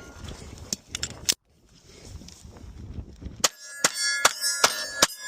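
A string of pistol shots fired in quick succession at steel targets, each hit ringing out with a metallic clang. There are three shots, a short pause, then five more at an even pace.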